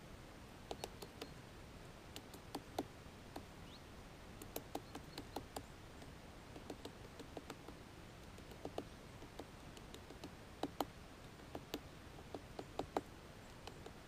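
Great spotted woodpecker hammering at a pine cone wedged in its anvil in a tree trunk: irregular sharp taps, in short bursts of a few strokes with pauses between.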